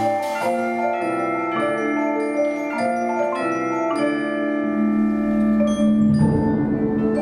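Mallet percussion ensemble of marimbas and vibraphones playing slow sustained chords that change about every half second to a second. About five seconds in, a low rumble swells in beneath the chords and grows toward the end.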